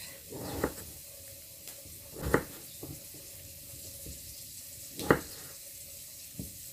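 Kitchen knife slicing through raw potato onto a wooden chopping board: a few separate cuts a couple of seconds apart, the two clearest about two and five seconds in.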